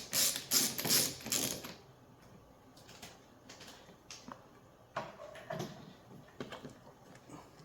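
Ratcheting bit driver clicking in quick, even strokes, about three a second, stopping under two seconds in. After that, only scattered light clicks and taps of small parts being handled.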